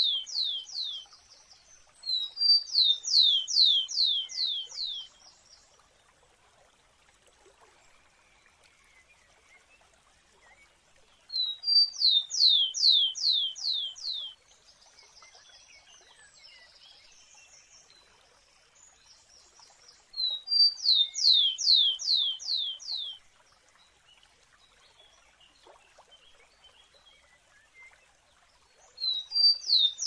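Rufous-collared sparrow singing, about four songs spaced roughly 9 s apart. Each song is a short high note or two, then a quick run of about six falling whistled notes, sometimes with a buzzy trill at the end.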